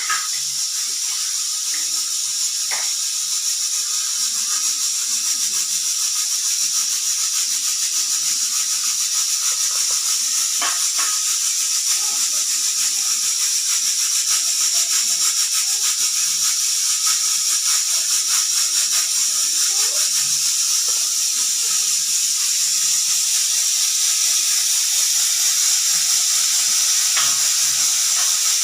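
Pressure cooker hissing steadily as steam escapes from its whistle valve, slowly growing a little louder as pressure builds, with a few faint clicks.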